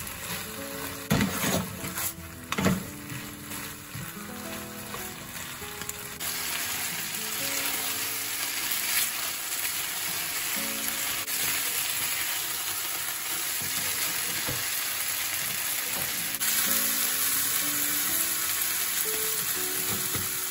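Kimchi fried rice with sausage sizzling in a frying pan as it is stirred, with a few sharp clacks of chopsticks against the pan in the first three seconds. The sizzle gets louder about six seconds in. A light background melody plays underneath.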